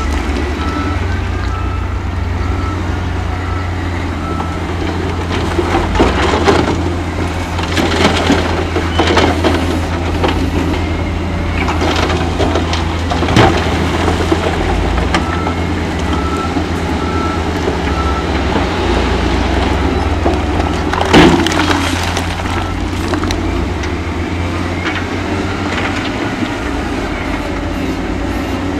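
Diesel engines of heavy earthmoving machines running steadily, with scattered knocks and clanks of stone being moved. A reversing alarm beeps in two spells, at the start and about halfway through.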